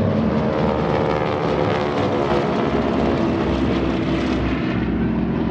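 Four North American T-6 Texans flying past in formation, their 600-horsepower Pratt & Whitney R-1340 radial engines and propellers making a loud, steady drone.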